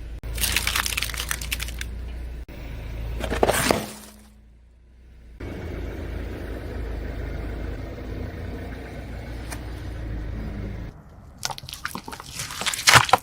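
A car's tyre rolling over and crushing crunchy objects: bursts of crackling and crunching about half a second in, again near three and a half seconds, and a rapid run of cracks near the end. In between, the car's engine runs low and steady.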